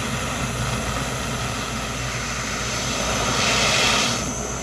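Hand-held propane torch burning steadily with a rushing hiss while its flame heats a bent steel brake caliper bracket to soften it for straightening. The hiss grows louder and brighter for about a second near the end, then eases off.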